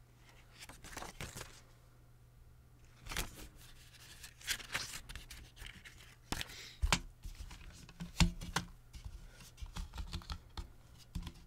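Paper pages of a CD booklet being handled and turned: scattered rustles with several sharp clicks and taps, over a faint steady low hum.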